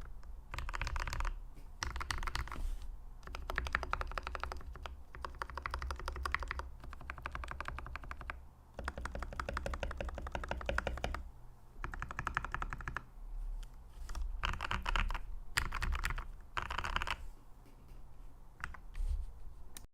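Typing on a Red Square Keyrox TKL Pro 2 mechanical keyboard with Gateron Yellow linear switches: rapid key clacks in bursts of a second or two, broken by short pauses.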